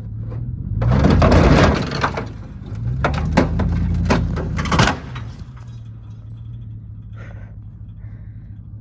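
A vehicle engine revving under load, with loud crunching and cracking in two long bursts in the first five seconds. After that the engine runs on steadily at a lower level.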